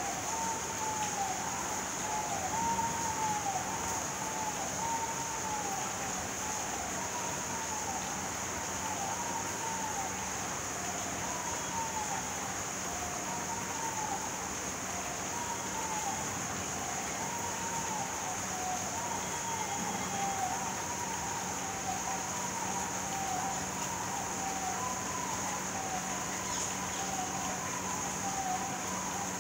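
Steady rain hiss, with a steady high-pitched whine over it and a repeated short rising-and-falling call, roughly one a second, in the middle range.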